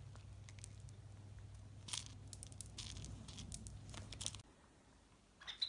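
A cat playing with a wand toy on a woven rug: scattered crackly scratches and clicks as its claws catch the rug and the toy, over a steady low hum that cuts off about four seconds in. A short high chirp near the end.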